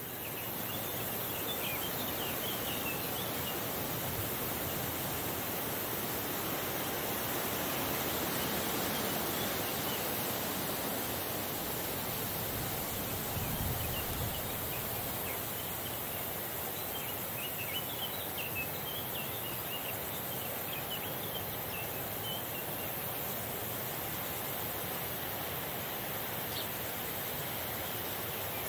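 Summer meadow ambience: a light breeze as a steady rushing hiss, with faint, short, high chirps in two spells, near the start and again in the second half. A brief low rumble comes about halfway through.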